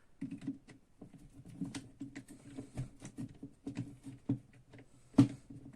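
Small irregular clicks, taps and rattles of wire ends and terminal clamps being handled while a supply cable is fastened to the coil terminals of an electromagnetic starter, with one sharper click about five seconds in.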